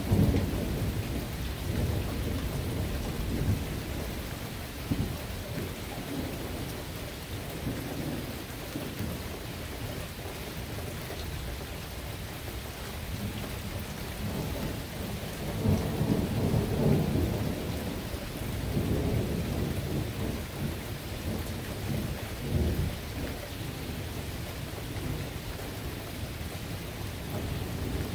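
Thunderstorm: steady rain falling, with low rolling thunder rumbling at the start and swelling up again for a few seconds a little past halfway.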